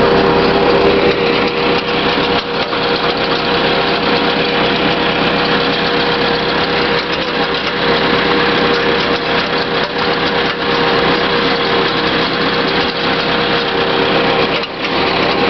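Small farm tractor's engine running at a steady speed as it drives along, heard loud and close from on board.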